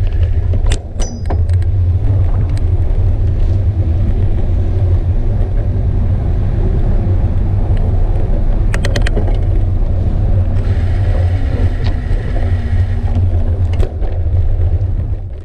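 Steady low rumble of wind and road vibration on a bicycle's handlebar-mounted camera while riding along a paved path. There are a few sharp knocks and rattles about a second in and again around nine seconds, and a higher whine for a couple of seconds past the middle.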